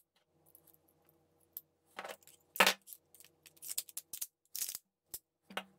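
Glock 17 Gen5 pistol being reassembled: a series of short, sharp clicks and clacks of steel and polymer parts as the slide is fitted back onto the frame, the loudest clack about two and a half seconds in.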